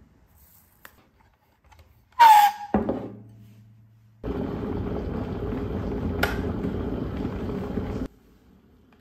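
A ceramic bowl set down on a wooden table with a loud clunk and a short falling ring about two seconds in. Then a Rohnson electric kettle heats water toward the boil: a steady rushing rumble with a single click partway through, cutting off abruptly near the end.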